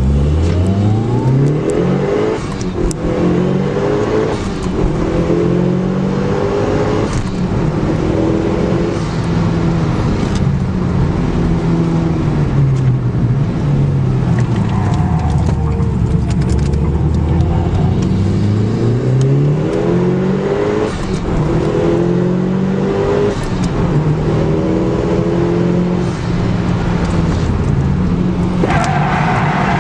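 Mitsubishi Lancer Evolution Tommi Mäkinen Edition's turbocharged four-cylinder heard from inside the cabin, revving hard with its pitch climbing and dropping again and again through gear changes, falling to low revs for a while midway. Near the end a steady high tyre squeal joins in.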